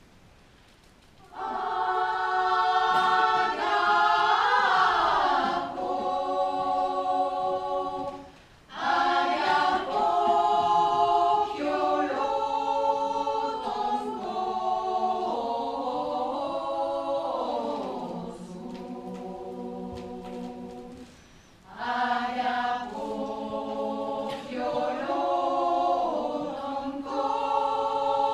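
Choir singing a cappella, starting about a second in, with short breaks between phrases about 8 seconds in and again around 21 seconds.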